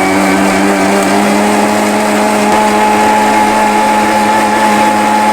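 Electric mixer grinder (mixie) running at full speed, dry-grinding chopped coconut pieces in its jar with a loud, steady motor whine.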